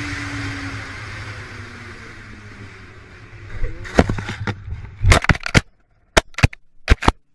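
Road and engine noise from a car, recorded by a dash cam, fading slowly, then from about four seconds in a string of sharp knocks and clicks with short gaps of near silence between them.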